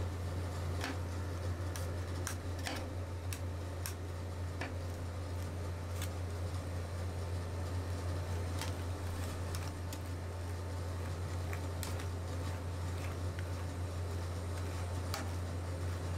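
Steady low hum of a rolled-ice-cream cold-plate machine, with irregular light ticks and scrapes of metal spatulas on the frozen steel pan as the Oreo ice cream is spread flat and scored.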